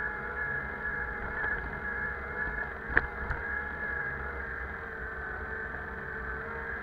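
Bicycle riding up a paved road: a steady whining hum over low rumble, with one sharp click about three seconds in.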